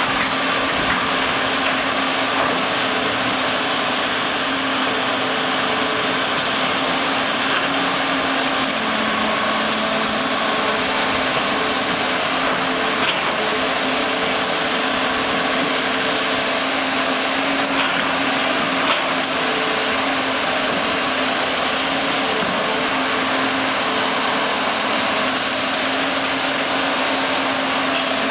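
Tracked hydraulic excavator working a house demolition: steady engine and hydraulic noise with a hum that shifts in pitch as the load changes, and a couple of sharp knocks from breaking debris.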